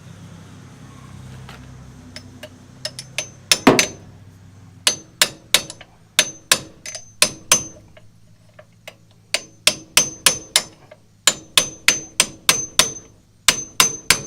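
Claw hammer striking a socket extension held against a disc brake pad's tabs, clinching them down onto the caliper so the pad cannot rattle. The strikes come in quick runs of sharp metallic hits with a high ring, several a second, starting about three and a half seconds in.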